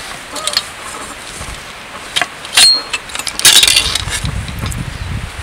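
Camping gear being handled: sharp clicks and clinks of small metal tools, the loudest with a short ring, then a burst of rustling fabric about three and a half seconds in.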